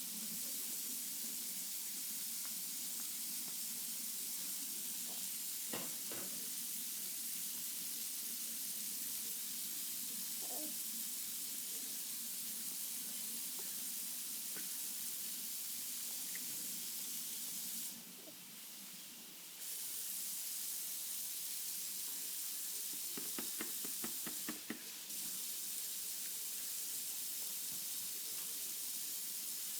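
Steady sizzling hiss of food frying in a pan, with a few light clicks and a brief dip in level about two-thirds of the way through.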